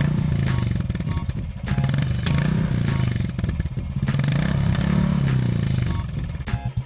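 Royal Enfield Classic 350's single-cylinder engine, breathing through a short-bottle Punjabi silencer, revved up and down twice, with a few sharp exhaust pops as the revs drop between the two blips.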